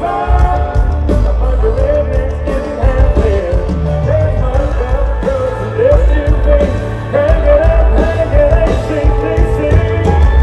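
Live country band playing through a concert sound system: a male lead vocal over banjo, fiddle, drums and heavy bass.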